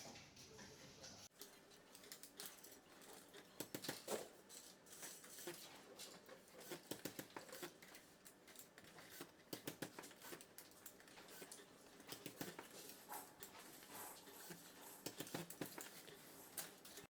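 Faint, irregular light clicks and taps, scattered unevenly with short clusters, over a low hiss.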